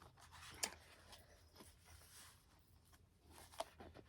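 Small cards being handled, near silence: a couple of light clicks, one about half a second in and one near the end, with faint rustling between.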